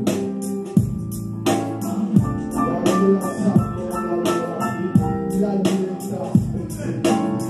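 Music: sustained keyboard chords over a steady beat, with a percussive hit about every 0.7 seconds.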